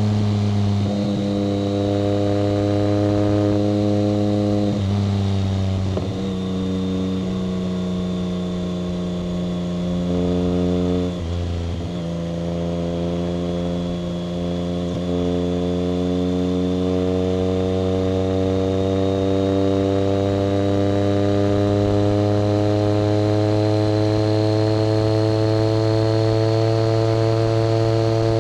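1990 BMW K75's three-cylinder engine running under way, with brief breaks and drops in pitch in the first half, then a long, slow rise in pitch as the bike picks up speed. A thin high whine runs along with it.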